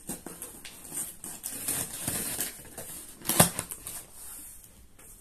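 Scissors snipping and scraping through packing tape on a cardboard box, with cardboard rustling, and one sharp loud snap about three and a half seconds in as the box is opened.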